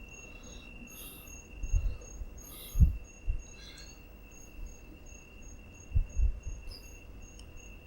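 A steady high-pitched tone with a higher chirp pulsing about three times a second, like a cricket, and a few soft low thumps in between.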